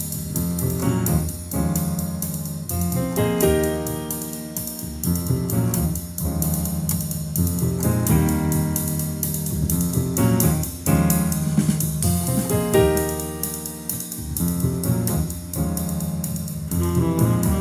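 Instrumental music with piano over a steady drum beat, played back through a pair of Dual CL270 three-way loudspeakers.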